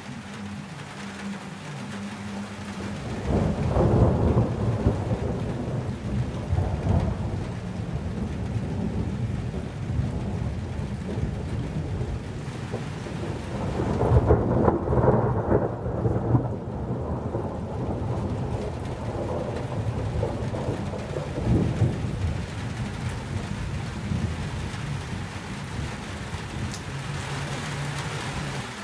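Thunder rumbling over steady rain. A long low rumble builds about three seconds in, a louder one comes around halfway, and a shorter one follows later, with rain falling throughout.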